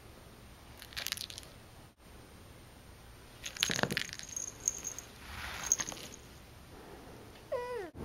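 A small bell on a cat's collar jingling in short bursts as the cat rolls and paws at a string, with brief rustles of fur on carpet. A short falling call comes just before the end.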